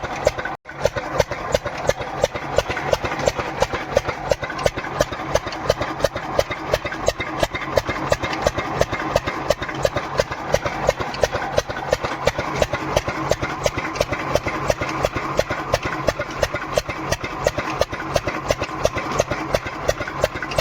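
An engine idling with a steady, even thudding beat, about four to five beats a second; the sound drops out for an instant under a second in.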